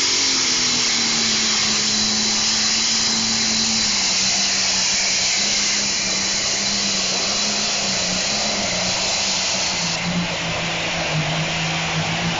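Pro stock Case pulling tractor's turbocharged diesel engine running flat out under the load of the sled: a loud, steady, high-pitched roar. Its pitch drops slightly about four seconds in, drops further near the ten-second mark, and rises again at the end.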